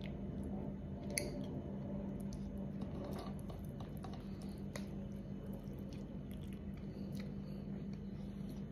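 A person chewing a mouthful of rice with soft, wet mouth clicks while her fingers pick at the food on the plate. The clicks are scattered, the sharpest about a second in, over a steady low hum.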